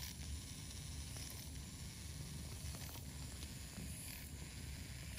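Steady low hiss and rumble of background noise in a procedure room, with a few faint light ticks.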